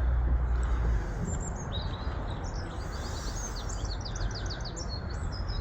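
Small bird chirping, with a quick run of repeated chirps about four seconds in, over a steady low outdoor rumble.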